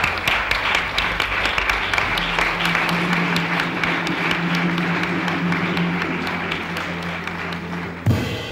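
Studio audience applauding while a drum kit plays a quick steady beat with cymbals, a held low note joining about two seconds in. A single loud hit lands near the end.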